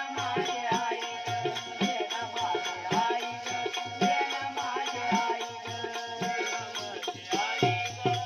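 Instrumental interlude of a Marathi devotional song with no singing: a steady drum beat and a fast shaker rhythm under a held melody note.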